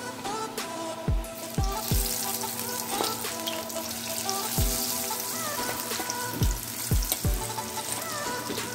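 Coated bitter gourd slices sizzling as they are dropped into hot oil and deep-fry, a steady crackling hiss. Electronic background music plays under it, with deep bass hits every second or so.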